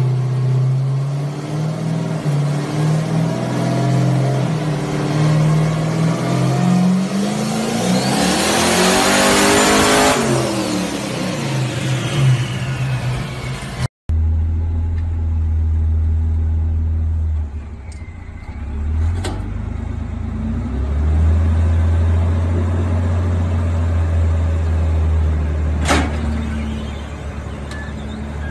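A rock-crawler buggy's engine running, revved up hard and let back down about nine seconds in. After a cut, a rock-crawling Jeep's engine runs low and steady under load as it climbs onto a trailer, with a couple of sharp clicks.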